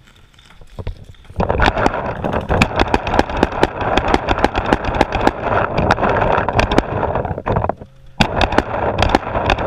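Paintball markers firing rapidly, many sharp pops a second, starting about a second in and running in two long strings with a short break near the end.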